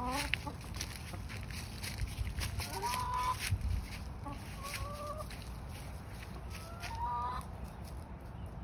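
Chickens clucking, with several short drawn-out calls a couple of seconds apart over a low rumble.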